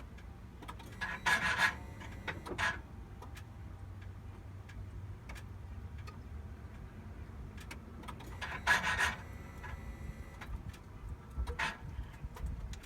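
A 2012 Cummins diesel truck being key-cycled with the engine off. A steady low hum runs under a few short rasping, clicking noises: two close together about a second in, another near the middle, a fainter one near the end. The rasping is the weird noise the owner is chasing.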